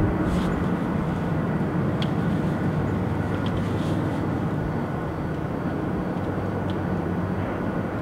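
Steady low drone of diesel heavy equipment, a bulldozer and drill rigs working a surface mine, with a few faint high clicks.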